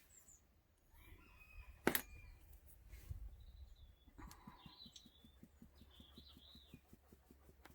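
Chickens calling faintly, with a rooster crowing, over a fast, steady run of faint ticks from a flour sieve being shaken and tapped, with one sharp click about two seconds in.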